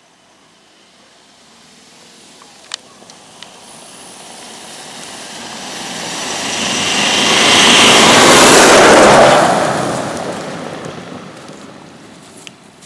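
A vehicle passes close by: its noise builds over several seconds, is loudest about eight to nine seconds in, then fades away. There is a sharp click about three seconds in.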